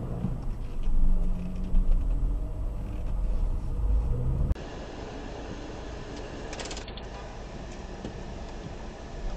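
Car cabin noise picked up by a dashcam: a low engine and road rumble with a few louder swells. About four and a half seconds in it switches abruptly to a quieter, steadier in-car hum.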